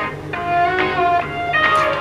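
Background music: a melody of plucked notes in quick succession over a low sustained bass.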